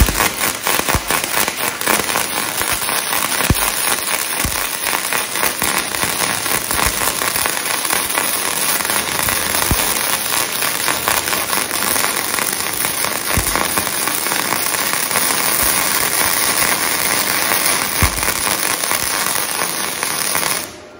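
Flux-cored (gasless) wire welding arc from a Weldinger MEW 180 miniSYN inverter welder, run at a lowered voltage setting for less penetration, laying a bead on steel with a steady crackle. The arc cuts off abruptly just before the end.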